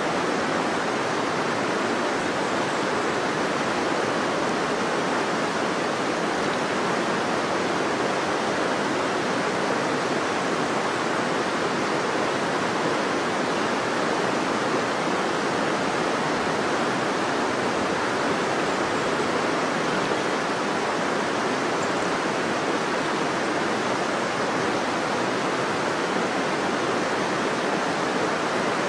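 River water rushing, a steady even noise that does not change.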